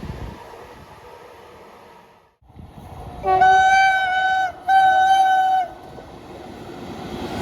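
Train horn sounding two loud blasts about a second long each, the second following a short break. Before them, a rushing noise fades out.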